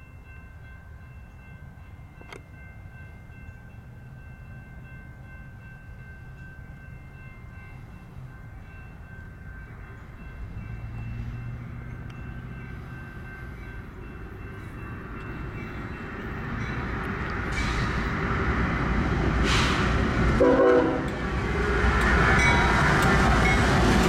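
Union Pacific freight train with GE diesel locomotives approaching, its engine and wheel rumble building steadily and growing loud near the end as the lead units arrive. A train horn sounds.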